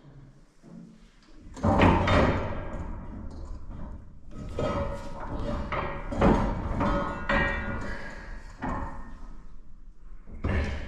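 A silo unloader being lowered down a door inside the silo: irregular metal clunks, knocks and scraping, with louder bangs about two seconds in, around six seconds and near the end.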